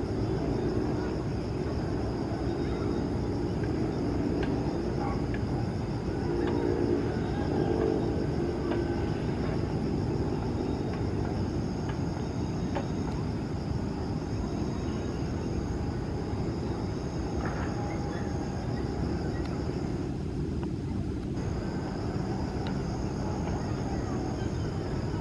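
Steady distant low rumble with no build or peak, and a faint thin high steady tone above it.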